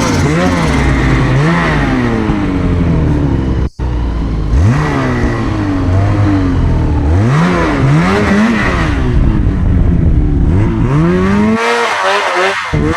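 Snowmobile engine revving up and down again and again while riding, its pitch rising and falling every second or so. The sound breaks off for an instant about four seconds in, and the engine drops away near the end.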